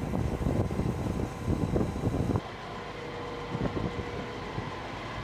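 Military helicopter running: dense rotor and turbine noise with a faint steady whine. About two and a half seconds in it cuts abruptly to a somewhat quieter, smoother stretch of the same kind of noise.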